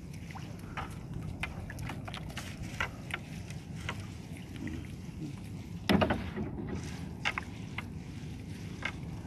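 Gill net being hauled in by hand over the gunwale of a wooden outrigger boat: a scatter of small clicks, taps and drips from the wet net and its floats, with one louder knock about six seconds in, over a steady low rumble.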